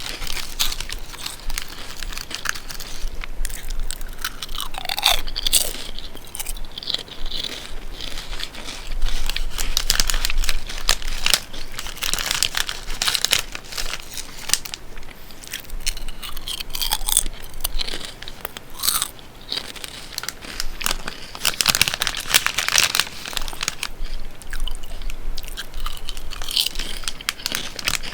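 Potato chips being bitten and chewed: a continuous run of dry, crisp crunches.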